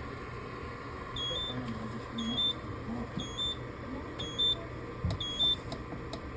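Dehumidifier beeping: five short electronic two-tone beeps, each a low note stepping up to a higher one, about a second apart, over a steady hum. A few sharp clicks come near the end.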